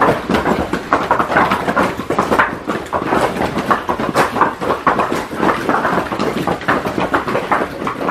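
Footsteps of a file of monks in zori sandals on stone stairs: many overlapping, irregular slaps and scuffs of sandal soles on stone.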